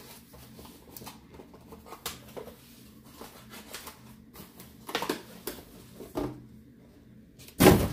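A cardboard shipping box being handled and opened: scattered scrapes and rustles of the cardboard flaps, with one loud, brief noise near the end.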